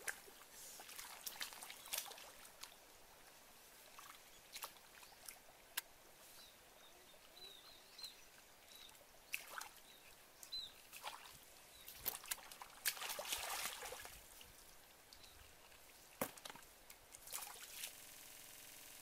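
Hands and feet stirring shallow muddy water: scattered small splashes, sloshes and trickles, with a longer run of splashing about two-thirds of the way through.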